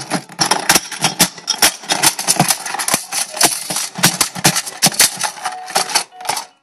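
Loud, close rustling and crackling with many sharp knocks, as of fabric and plastic rubbing and bumping right at the microphone. It cuts off shortly before the end.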